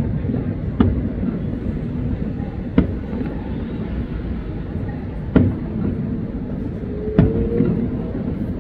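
Aerial fireworks shells bursting in the distance: five sharp booms at irregular intervals over a steady low rumble.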